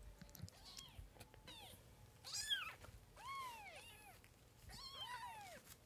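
Very young kittens mewing: a run of short, high mews that each rise and fall in pitch. The loudest comes about two and a half seconds in.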